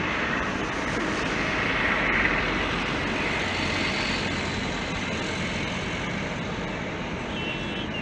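Distant Boeing 747 taxiing, its four jet engines at low power giving a steady rushing roar with a faint whine, swelling slightly about two seconds in.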